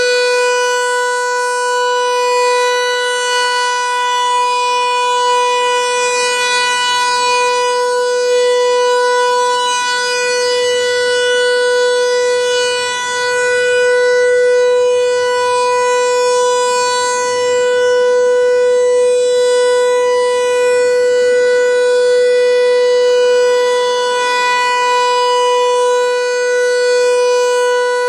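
American Signal T-128 outdoor warning siren sounding its alert signal: one steady, unwavering tone, loud, swelling and fading slightly as the rotating siren head sweeps past.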